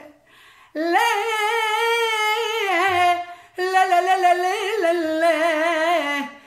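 A woman singing a traditional Asia Minor Greek song unaccompanied, in two slow phrases of long, wavering, ornamented notes. There is a short breath at the start and a brief pause near the middle.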